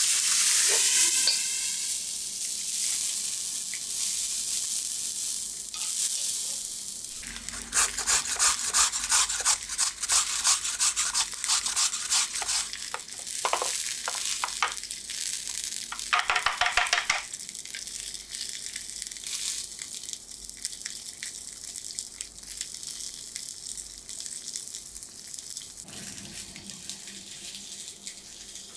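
Water squirted onto a hot teppanyaki griddle beside a sweetfish under a copper dome, flashing into a loud hissing sizzle of steam that eases off over several seconds. Then comes a long run of rapid scratchy strokes in clusters.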